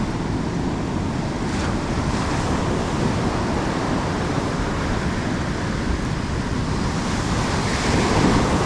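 Heavy, rough surf washing and breaking on the beach, a steady rush of water that swells a little near the end, with wind buffeting the microphone.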